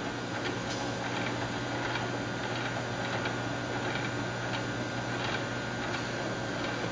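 Steady hum of lab machinery, with a few light clicks and taps as a 3D printer build pad is handled and set into a stainless steel wash tank.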